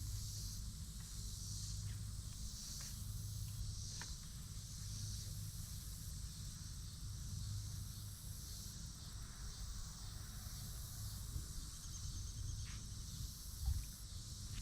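Outdoor ambience: a steady low rumble under a steady high hiss, with a few faint clicks and a short thump near the end.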